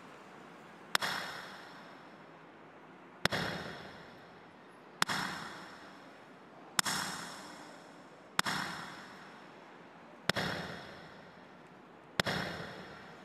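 A bell struck seven times, roughly every two seconds. Each stroke rings with high overtones and dies away in a long echo.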